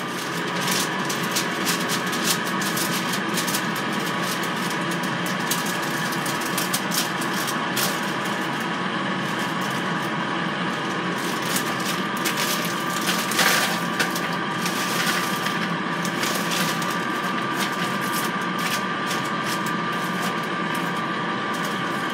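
Power XL air fryer running with a steady fan hum while it cooks. Over it come scattered rustles and clicks from parchment paper and a bag of mixed vegetables being handled, busiest a little past the middle.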